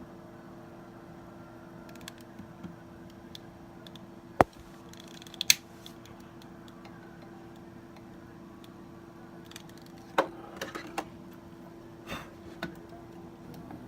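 Sharp clicks and small knocks from handling objects at close range: two loud clicks about four and five seconds in, a cluster around ten seconds, and a couple more after that, over a steady low hum. No smoke alarm sounds.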